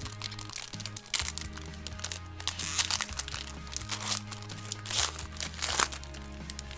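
Foil wrapper of a trading-card pack being torn open and crinkled by hand, crackling in several spells that are loudest about three and six seconds in. Background music with a steady bass line runs underneath.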